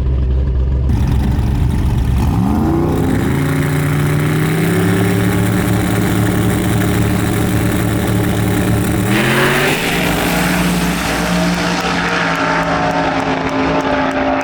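Car engine rising in pitch about two seconds in and holding high revs, then climbing again with a rush of noise about nine seconds in.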